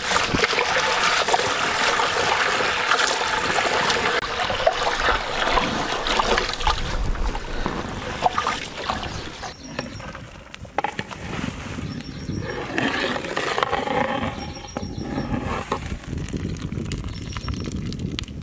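A stream of water pours onto a heap of mixed dals (urad, moong and chana) while a hand churns through them, splashing and sloshing steadily. About halfway through it gives way to quieter, uneven sounds.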